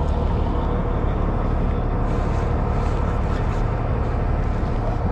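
Fishing boat's engine running at a steady low hum, with a few faint clicks about two to three and a half seconds in.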